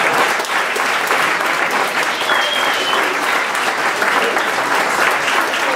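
An audience applauding steadily, with a short high whistle about two seconds in.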